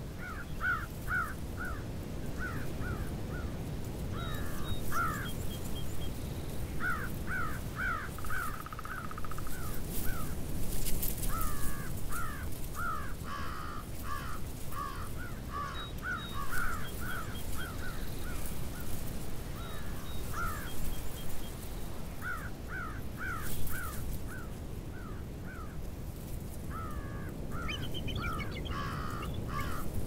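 Bald eagles calling: groups of thin, high, quickly repeated chittering notes, broken by short pauses and coming again and again. A steady low rumble of wind lies underneath.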